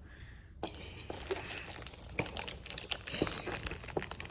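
Crinkling and clicking of foil baseball card packs and a clear plastic case being handled, starting about half a second in.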